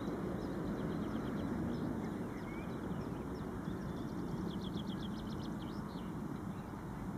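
Steady low outdoor background noise with small birds singing; a fast bird trill of quickly repeated notes, about nine a second, comes about four and a half seconds in.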